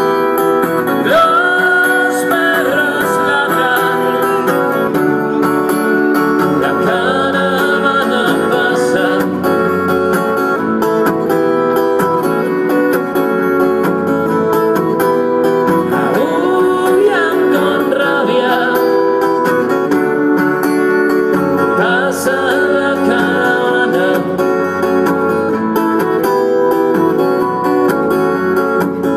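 Acoustic guitar played live, strummed steadily and without a break, with a few melodic lines rising and falling over the chords from time to time.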